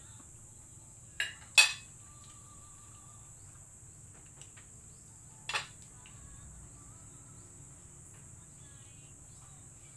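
A few short sharp clinks of a spoon against a plate while eating: two close together about a second and a half in, the second the loudest, and one more about halfway through. A steady high hiss runs underneath.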